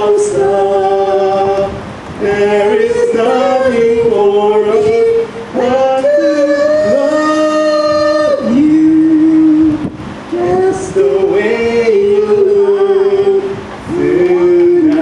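A woman and a man singing a disco tune live into microphones, in long held notes with short breaks between phrases; at times the two voices sing together in harmony.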